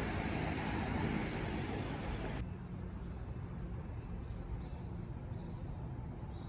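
Road traffic noise. About two seconds in it cuts abruptly to a quieter, lower rumble of traffic.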